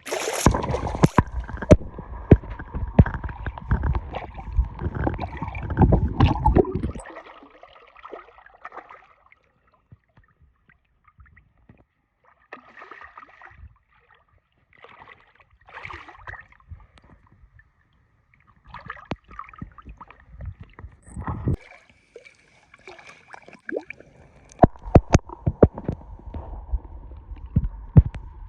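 Water sloshing and gurgling with many sharp knocks close to the microphone, loud for about the first seven seconds and again near the end. In between it is quieter, with scattered short splashes and knocks.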